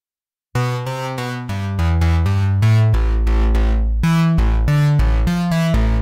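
GForce Oberheim OB-X software synthesizer playing its 'Metallic Bass' preset, a strong metallic bass. A bass line comes in about half a second in with quick short notes, then moves to longer held low notes from about halfway.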